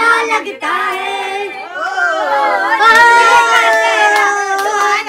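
A small group of voices singing a song together without instruments.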